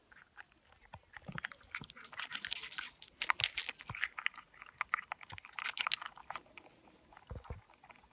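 A squirrel chewing and crunching a nut close to the microphone: fast, dense clicking crunches that are busiest through the middle and thin out near the end, with a couple of dull low thumps.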